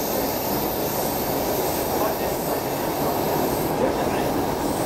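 Stockholm Metro C6 subway car running through a tunnel, heard from inside the car: a steady rumble of wheels and running gear on the rails, with no break or change.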